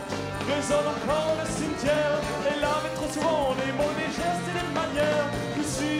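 Live folk-rock band playing, with accordion, violin, acoustic guitars and drums over a steady beat.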